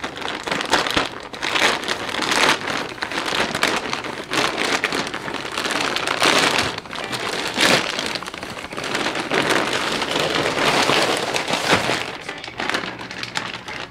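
Plastic poly mailer bag crinkling and tearing as it is ripped open by hand: dense, continuous rustling with sharper crackles throughout. Near the end it rustles as the packaged hoodie is pulled out.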